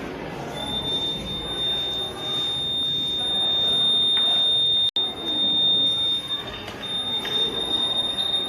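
Electronic buzzer of a water-tank overflow alarm sounding one steady high-pitched tone, with a brief break about halfway: the signal that the water has reached the top of the tank.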